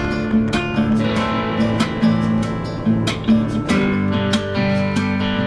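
Background music led by strummed guitar, with chords struck in a steady rhythm.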